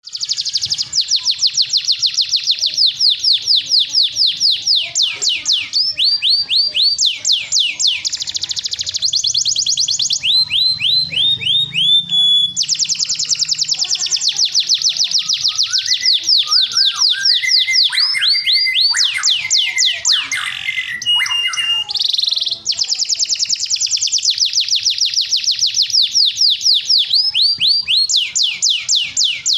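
Male domestic canary singing a long unbroken song of rapid high trills, each phrase a fast run of repeated sweeping notes, switching to a new phrase every second or few, with a few lower, slower notes about two-thirds of the way through.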